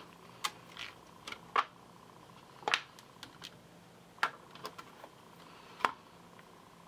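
Scattered light clicks and taps, about a dozen at uneven intervals, a few sharper than the rest, from stamping with a hinged acrylic stamping platform and ink pad: the platform door being closed and pressed and the clear stamp re-inked.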